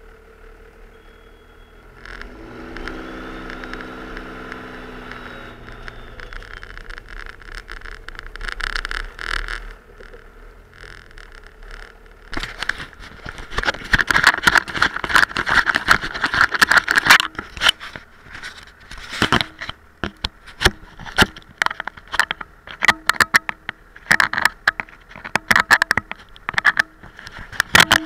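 Cummins inline-six turbo-diesel in a Ram 2500 revving up under load during a push. After that comes a long run of sharp, irregular scraping and crackling as the V-plow blade grinds through heavy, dense snow and sleet over a hard-packed base.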